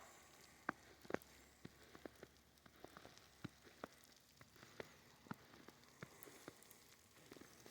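Faint, irregular ticking and pattering over a soft hiss, as snow comes down steadily in a snowstorm.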